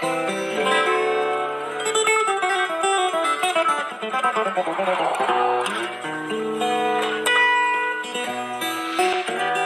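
Solo acoustic guitar played fingerstyle: picked melody notes moving over sustained bass notes.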